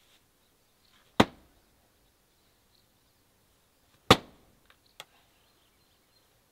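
Two sharp axe chops into a firewood round, about three seconds apart, with a faint knock about a second after the second chop. The axe is hand-forged from train rail.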